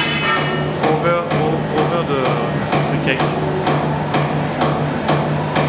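Traditional vertical champagne press running under pressure: a steady low hum with an even mechanical knock about twice a second.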